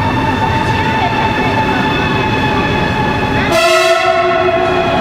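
CRH380BG high-speed train heard from inside the carriage: steady running noise with steady high whining tones. About three and a half seconds in, a horn-like tone of several pitches together sounds for about a second and a half.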